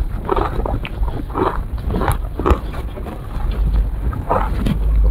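A person eating ice cream close to the microphone: a few separate wet chewing and biting sounds, roughly a second apart, over a steady low rumble.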